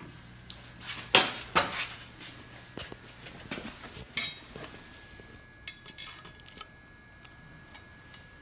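Metal parts clinking as a steel mounting bracket, spacers and small bolts are handled and set onto a FASS fuel pump: three sharp clinks in the first half, then a few light ticks as the bolts are started by hand.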